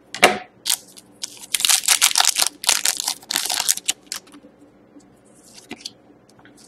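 Foil wrapper of a hockey card pack being torn open and crinkled: a dense run of crackling for about four seconds, then only faint handling of the cards.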